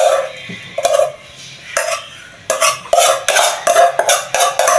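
A metal spoon scraping and clinking against the inside of a stainless steel saucepan in a run of short, irregular strokes, roughly two to three a second, as thick pepper sauce is scooped out.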